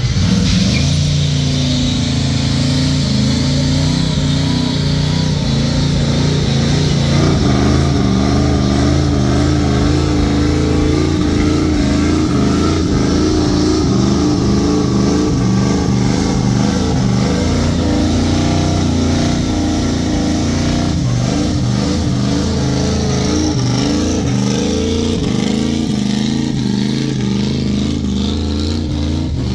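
Classic pickup truck's engine held at high revs through a long burnout, its pitch wavering slightly up and down, with the rear tyres spinning and smoking on the pad.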